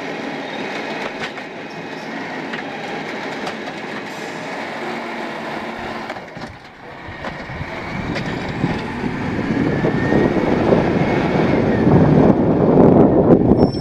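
Autocar Xpeditor automated side-loader garbage truck working a cart: the arm's hydraulics and the clatter of the cart being shaken out over the hopper and lowered back to the curb. From about eight seconds in, the truck's engine grows steadily louder as the truck pulls forward, loudest near the end.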